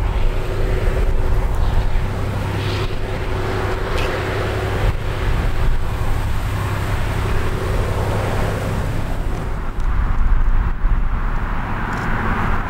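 Diesel engine of a departing SM30 shunting locomotive running with a steady low drone and a thin steady hum, mixed with wind noise on the microphone. The hum fades out about nine seconds in, and after a short dip near ten seconds the wind noise grows louder.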